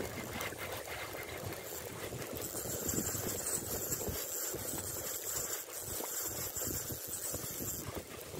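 Spinning fishing reel being cranked, mixed with wind buffeting the microphone.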